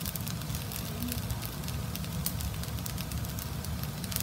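Fried rice with vegetables and chicken sizzling and crackling in a non-stick frying pan over a gas burner, with irregular sharp ticks several times a second over a steady low rumble from the flame.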